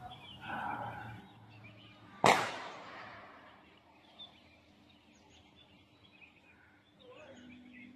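A single sharp knock or bang about two seconds in, ringing out for about a second, over a faint outdoor background with a few bird chirps.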